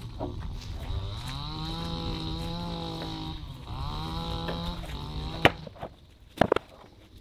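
A cow mooing twice, two long low calls that each rise, hold and fall away. Near the end comes a sharp knock and a couple of thuds as rigid foam insulation boards are set down on a stack.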